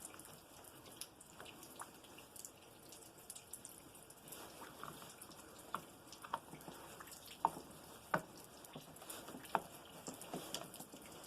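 Faint, scattered clicks and taps of small parts being handled and fitted together on a Snow Joe snowblower's handle as the safety-switch bypass is assembled, with a few sharper clicks in the second half.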